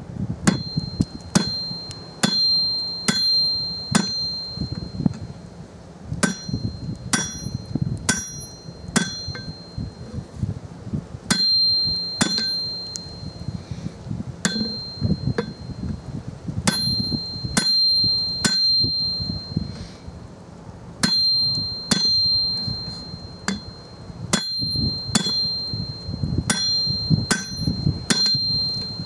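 Hand hammer striking a red-hot one-inch bar on an anvil, drawing it down: about two blows a second in runs with short pauses. Each blow leaves the anvil with a high ring.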